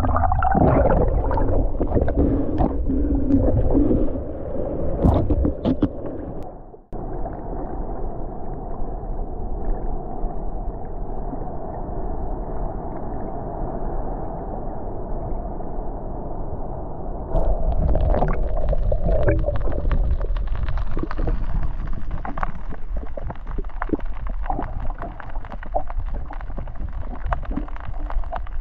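Muffled rushing and gurgling of water heard by an underwater camera as it moves through the sea, with scattered clicks and crackles. About seven seconds in the sound breaks off sharply and goes on duller and steadier. After about seventeen seconds it turns brighter and more crackly.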